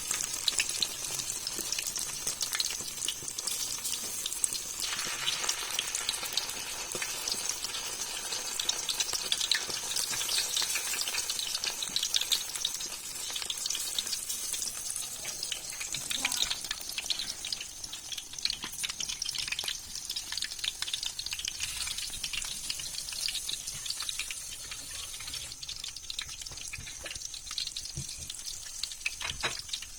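Fish shallow-frying in hot coconut oil, a steady dense sizzle full of small crackles that gets somewhat quieter toward the end.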